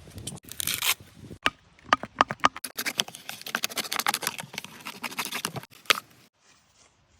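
A quick, irregular run of scrapes and sharp clicks, like objects being handled and rubbed by hand, stopping suddenly about six seconds in.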